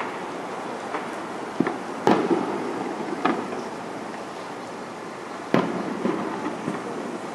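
Fireworks shells bursting in the distance: several sharp, echoing bangs, the loudest about two seconds in and again about five and a half seconds in, over a steady background rush.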